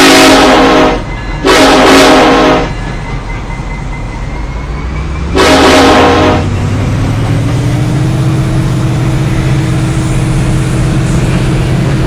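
Norfolk Southern locomotive's deep-toned air horn sounding three blasts, the last and shortest about five seconds in. Between and after the blasts the train rumbles steadily past.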